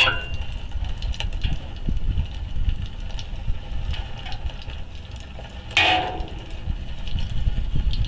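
Low, steady rumble of the homemade waste-oil burner's flame in its steel firebox, with scattered small crackles and a brief hiss a little before six seconds in.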